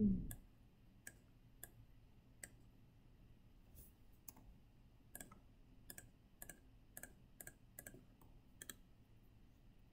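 Computer mouse button clicking: faint single clicks, sparse at first and then about two a second in the second half.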